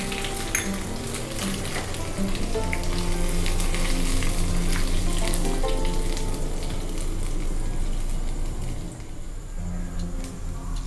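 A ghee tempering of cashews, ginger, green chilli, black pepper and cumin sizzling in a small steel kadai. The sizzle thins out near the end. Soft background music plays underneath.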